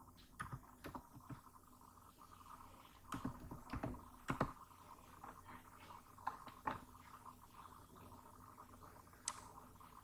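Faint, scattered keystrokes and clicks on a computer keyboard, a few at a time with pauses between.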